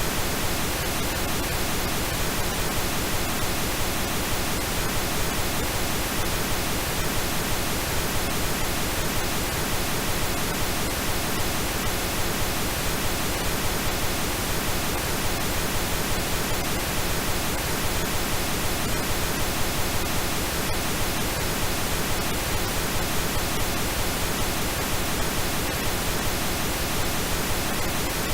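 Steady synthetic pink noise: an even, unchanging hiss.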